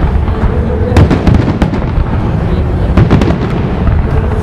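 Fireworks display: aerial shells bursting in quick succession, sharp bangs over a constant deep rumble, with the densest clusters about a second in and again around three seconds in.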